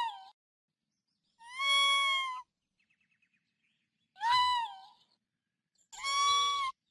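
Raccoon giving high, mewing calls: three of about a second each, roughly two seconds apart, steady in pitch with a slight rise and fall. A faint, quick chatter of clicks comes between the first two.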